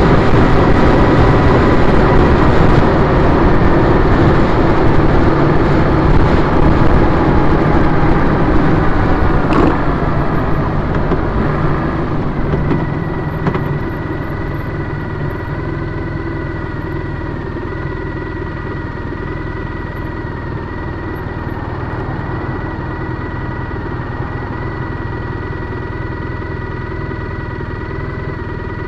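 2010 Triumph Bonneville T100's parallel-twin engine running while riding, with loud wind and road noise that fades as the bike slows over the first dozen seconds. From about thirteen seconds in, the engine idles steadily while the bike stands in stopped traffic.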